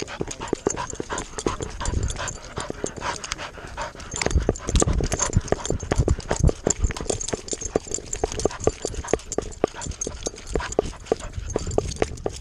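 A dog running through dry grass and dirt, heard right at the body from a GoPro it wears: its breathing and panting, rapid paw thuds, and grass and mount rattling in many sharp clicks and rustles. The thumps get heavier from about four seconds in.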